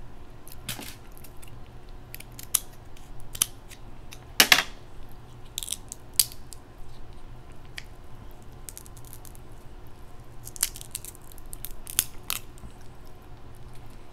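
Crab leg shells being cracked and snapped open by hand: scattered sharp cracks and clicks, the loudest about four and a half seconds in and another cluster near the end.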